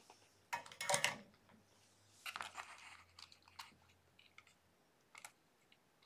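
Light clicks, taps and rustling of hands handling a small plastic toy battery box and its wires on a sheet of card, in a few short spells of handling noise.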